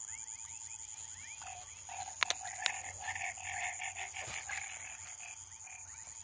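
A chorus of frogs calling, many short chirping notes repeating and overlapping. A few sharp clicks stand out a little past two seconds in.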